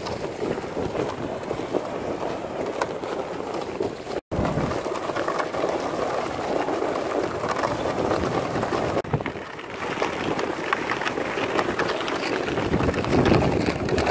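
Footsteps crunching and plastic sleds scraping over snow-covered lake ice, with wind on the microphone; the sound breaks off briefly about four seconds in.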